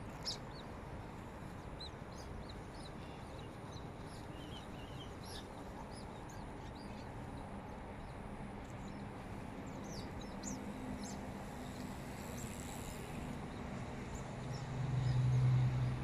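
Smooth-coated otters giving many short, high-pitched chirps and squeaks over steady city background noise. A low hum swells briefly near the end and is the loudest sound.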